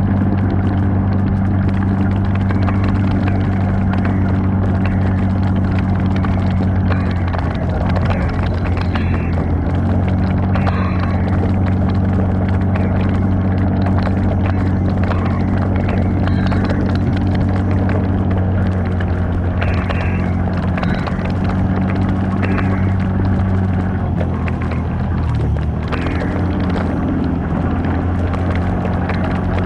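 Off-road vehicle engine running steadily at a low, even pitch, with scattered clicks and rattles over it. The engine note dips and shifts about three-quarters of the way through, then settles again.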